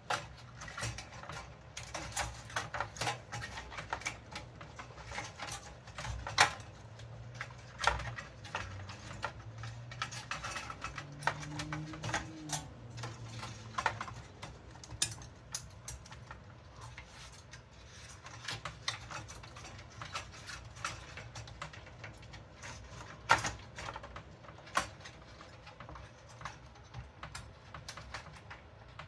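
Irregular clicks, taps and light knocks of hands working a cable and its plug into a cramped computer case, with a few sharper knocks among them.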